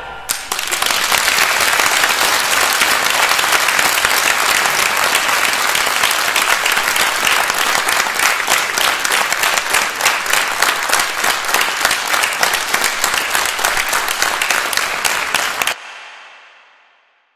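Large theatre audience applauding, breaking out just as the orchestra and singers finish. The applause is steady and dense, then cuts off suddenly near the end and trails away to silence.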